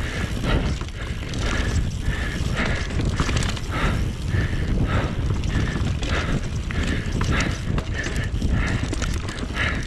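Mountain bike riding fast down a dirt trail: tyres rumbling over the ground and the bike rattling and clattering, with a heavy low rumble throughout.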